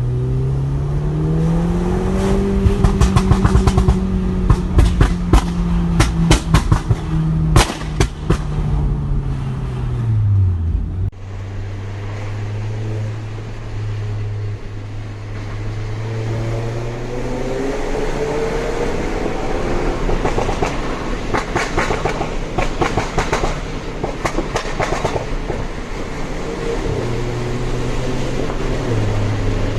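Audi TT Mk2's turbocharged 2.0 TFSI four-cylinder engine revving up and holding high revs while the exhaust fires rapid pops and bangs, then the revs drop away. It then runs steadily, rises again with another run of crackles, and settles back.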